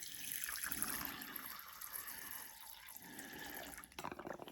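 Water being poured into a small water bowl, a steady trickle filling it, which stops about four seconds in, followed by a few light clicks.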